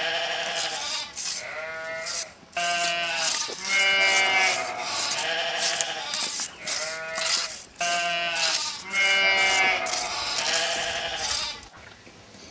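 Farm animals bleating over and over, one wavering call after another with short gaps between them.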